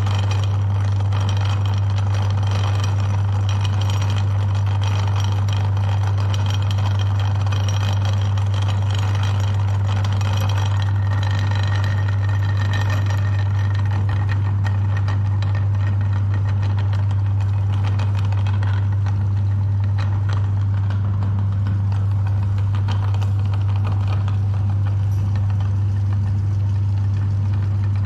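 Electric meat grinder running steadily, its motor giving a deep, constant hum with a rattly whir on top.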